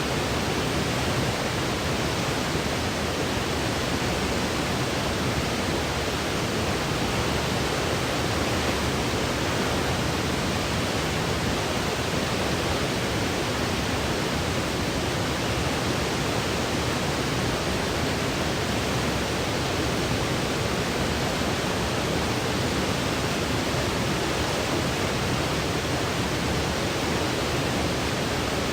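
Steady white noise for sleep, an even hiss spread over all pitches, unchanging throughout with no tones or pulses.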